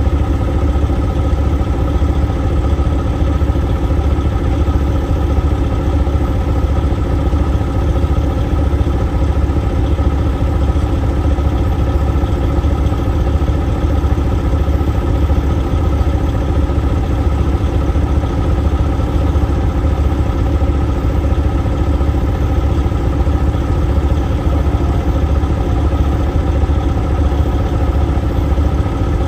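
Diesel engine idling steadily: a low, even drone with no revving.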